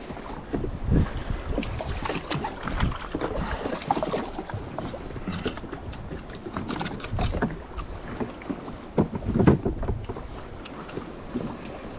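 Wind buffeting the microphone and water sloshing around a drifting jetski, with irregular knocks and clicks from gear being handled on board.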